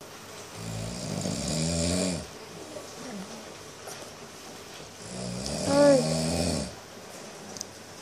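A person snoring: two long, loud snores about four seconds apart, the second rising into a brief pitched, voice-like tone at its peak.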